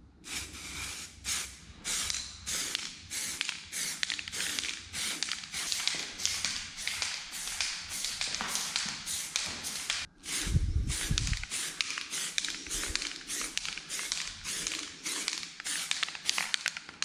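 Aerosol spray-paint can hissing in short, quick bursts, about two or three a second, laying the first coat of matte black paint. About ten seconds in there is a low rumble lasting about a second.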